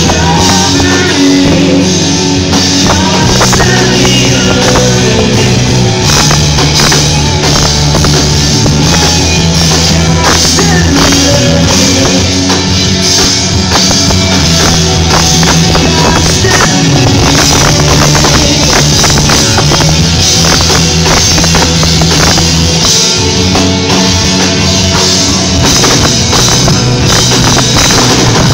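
Live rock band playing an instrumental passage: electric guitars over a drum kit, loud and steady, with no singing.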